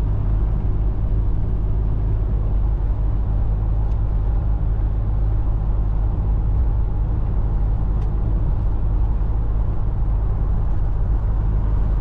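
Steady cabin drone of a 2004 Chevrolet S10 Blazer driving along a highway: a low, even rumble of engine and tyres on the road.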